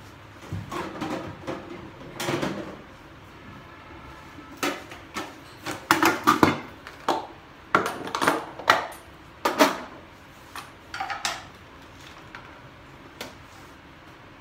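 Kitchen containers and utensils being handled on a counter: irregular clatter of knocks and clicks, busiest in the middle, with a few short ringing taps.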